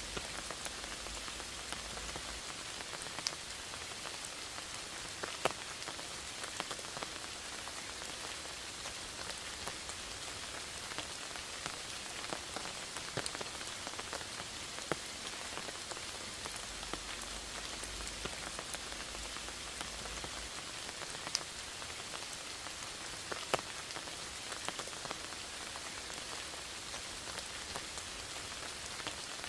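Steady rain falling in a forest: an even hiss of rainfall with scattered sharper ticks of single drops hitting close by.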